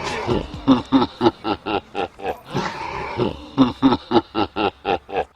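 A voice laughing in short rhythmic pulses, about four a second, with a brief unbroken stretch partway through. It cuts off suddenly at the end.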